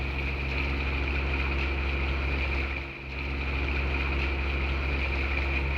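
Boat engine running steadily under way, a low drone with a steady high whine above it; the sound dips briefly about three seconds in.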